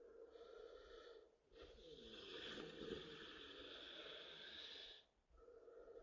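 A sleeping person snoring, breath after breath, with short pauses between them and one long drawn-out snore of about three and a half seconds in the middle; the snoring sounds like someone who has been poisoned.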